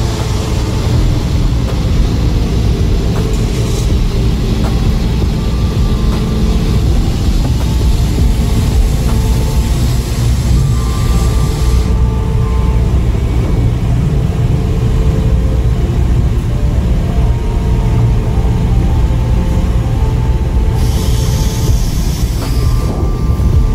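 Steady low engine rumble on a car ferry's vehicle deck during docking, heard from inside a car, with a higher hiss over the first half that returns briefly near the end.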